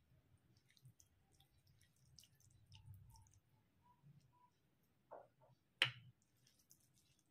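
Faint squishing and small clicks of fingers mixing rice with curry on a plate, with one sharp click a little before the end.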